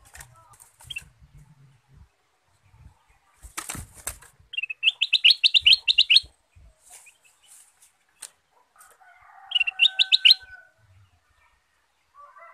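Caged ruby-throated bulbul fluttering its wings and hopping on its perch, then singing two quick chattering phrases of rapid high notes: the first about a second and a half long, the second about a second long near the end.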